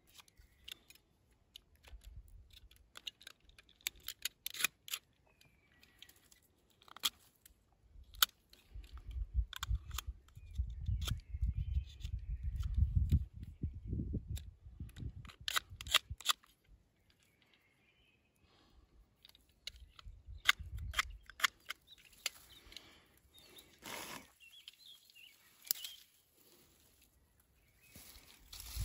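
Irregular sharp clicks and snaps, with faint bird chirps now and then and a low rumble for several seconds in the middle.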